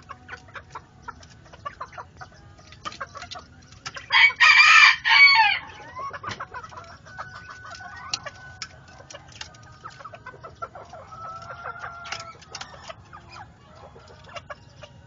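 A rooster crows once, loudly, about four seconds in, for about a second and a half; around it chickens of a Polish Frizzle breeding trio cluck and call more softly, with scattered light clicks.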